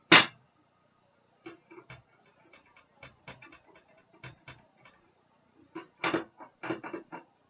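A sharp plastic click from a Stampin' Up ink pad case, then light ticks and knocks as it is handled. Near the end comes a quick run of taps as a clear acrylic block with a rubber hedgehog stamp is pressed and dabbed onto the ink pad to ink it.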